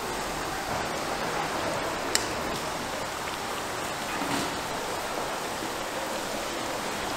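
Hot oil sizzling steadily in a large deep-fryer full of battered fritters, with a single sharp click about two seconds in.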